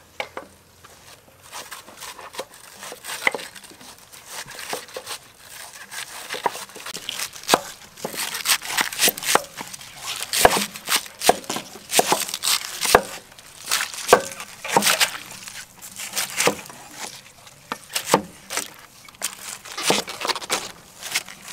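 Knives shredding crisp cabbage heads on round wooden chopping boards: irregular quick crunching cuts and knocks of the blades on the wood, several knives going at once. The cutting gets busier from about eight seconds in.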